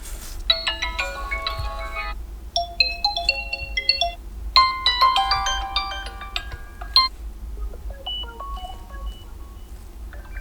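Vivo V23 5G built-in ringtones previewed one after another: four short melodic chime tunes, each cut off after one to two and a half seconds, the last one quieter.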